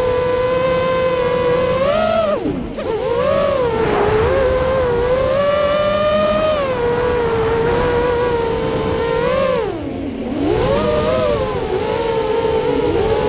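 QAV210 FPV racing quadcopter's 2204 2300Kv brushless motors spinning three-blade 5045 props, heard from the onboard camera: a steady whine whose pitch swings up and down with the throttle. It dips sharply and recovers about two and a half seconds in, and again near ten seconds.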